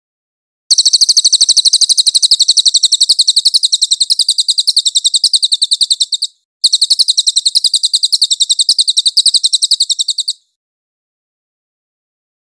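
Crested jay (cililin) calling: a fast, even rattle of high-pitched notes, about a dozen a second, in two long bouts of roughly five and four seconds with a short break between.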